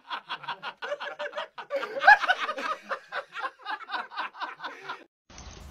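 A person laughing in a long, quick run of even 'ha-ha-ha' bursts, about six a second, loudest about two seconds in, breaking off near the end.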